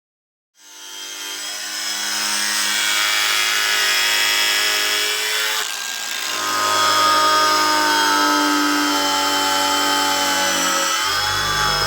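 Electronic background music fading in: sustained synth chords that change about halfway through, with a deep bass coming in near the end.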